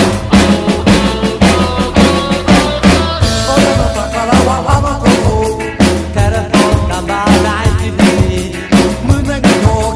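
Acoustic drum kit played along to a recorded rockabilly song: bass drum and snare hits in a steady beat of about four strikes a second, with cymbals, over the track's pitched band parts.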